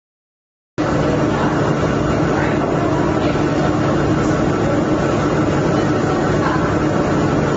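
Steady machine running noise with a low hum, cutting in abruptly about a second in after dead silence.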